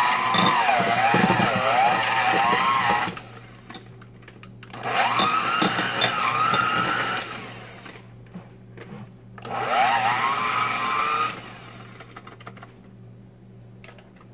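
Electric hand mixer on low speed shredding cooked chicken breasts, its motor whine wavering in pitch as the beaters bog down in the meat. It stops about three seconds in, then runs in two more short bursts, each spinning up, before stopping for good.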